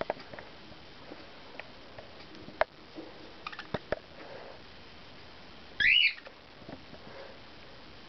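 A budgie gives one short, loud chirp about six seconds in. Before it come scattered small clicks and taps.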